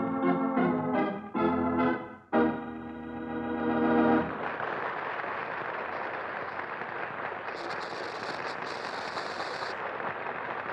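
Organ music playing a short run of held chords, broken by brief gaps, that ends about four seconds in; a steady rushing noise with no clear pitch follows.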